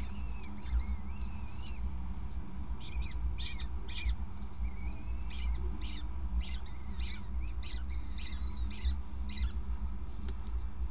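Peregrine falcon chicks begging while an adult feeds them: many short, high-pitched calls in quick runs. A steady low rumble lies underneath.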